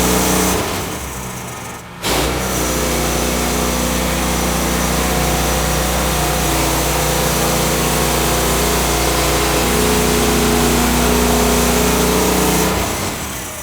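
An engine running steadily. It drops away for a moment just before two seconds in, comes straight back, and fades out near the end.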